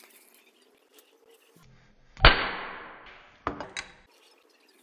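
A sudden loud hit that rings and fades over about a second, followed about a second later by two sharp clicks.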